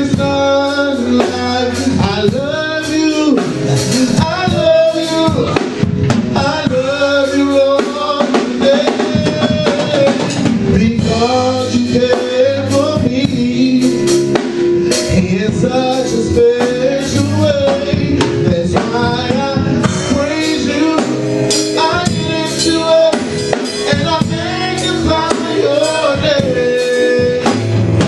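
A man singing a gospel song into a microphone, backed by a band with a drum kit keeping a steady beat.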